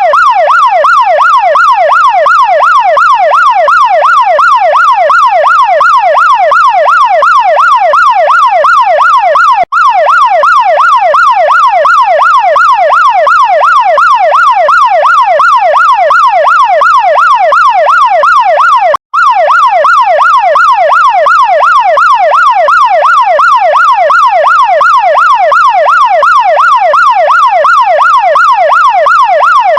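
Chinese fire truck siren sounding a rapid, evenly repeating up-and-down sweep, over and over without pause, with a faint low hum beneath it. The siren cuts out for an instant twice.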